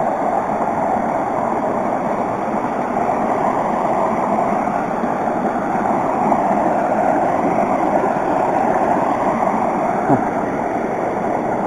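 Shallow creek water rushing over rocks and gravel in a small whitewater riffle: a loud, steady rush.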